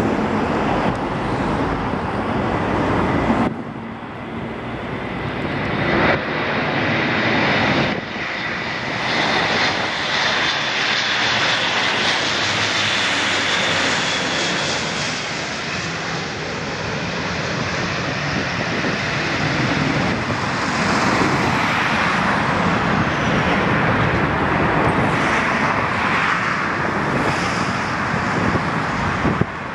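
Airbus A400M's four Europrop TP400 turboprop engines running as the transport lands, a loud drone with a steady high whine strongest as it passes low overhead near the middle, then on the runway. The level jumps suddenly a few times in the first eight seconds.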